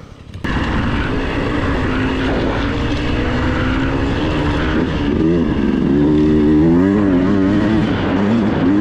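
Trail motorbike engine running under riding load, its pitch rising and falling as the throttle is worked. It starts suddenly, loud, about half a second in.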